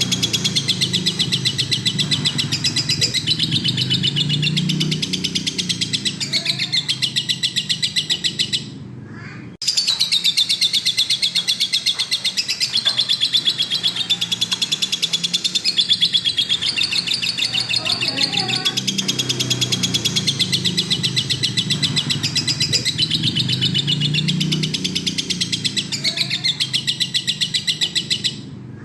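Lovebird singing a long, rapid, unbroken chatter of high chirps, the drawn-out trill that bird-keepers call 'gacor'. It breaks off for about a second some nine seconds in and again near the end, then starts up again.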